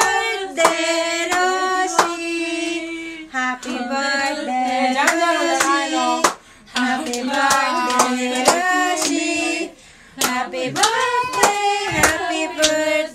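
A small group of children and women singing a birthday song together, clapping their hands in time, with two short breaks between phrases.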